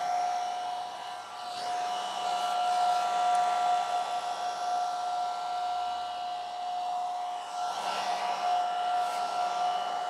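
Revlon One-Step hot air brush running: a steady whine from its motor and fan over the rush of blowing air.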